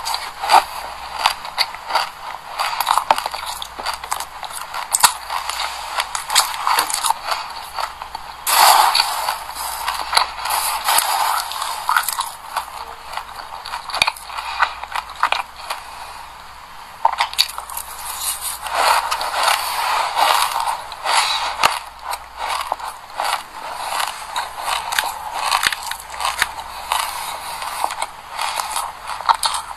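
Close-miked chewing of a mouthful of black sesame seeds: a dense, fast crackle of tiny crunches. It eases off for a few seconds around the middle, then picks up again.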